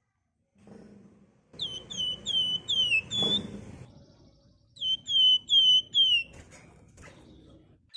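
Javan fulvetta (wergan Jawa) calling: two runs of four or five clear, short whistled notes, each slurring down in pitch. The first run comes about a second and a half in, the second about five seconds in.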